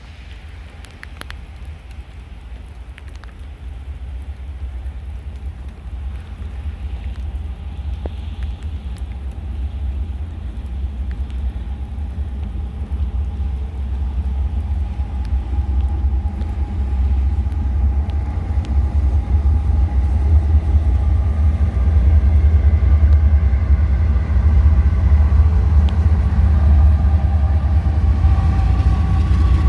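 Approaching Norfolk Southern diesel locomotive and freight train: a deep rumble that grows steadily louder, with steady engine tones rising into it over the last ten seconds or so.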